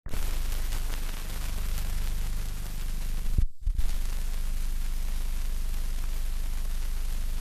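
Steady hiss and low hum of an old film soundtrack with no recorded sound on it. About three and a half seconds in, the hiss drops out briefly between two short thumps.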